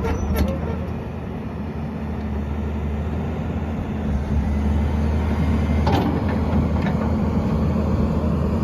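XCMG XE210 excavator's Cummins diesel running steadily as the machine travels on its tracks, with a sharp clank about six seconds in and a lighter one just after.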